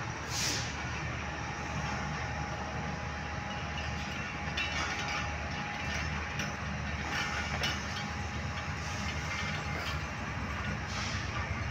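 Pakistan Railways passenger train rolling out of the station, heard from on board: a steady low rumble with scattered clacks of wheels over rail joints and points. There is a short hiss just after the start and a thin steady whine from about a second in.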